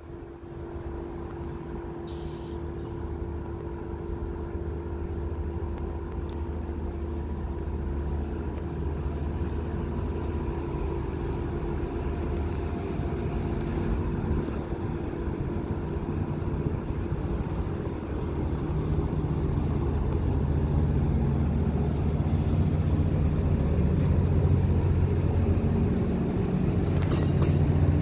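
Renfe Class 599 diesel multiple unit running steadily with a low drone and a steady hum, growing gradually louder. A few brief clicks come near the end.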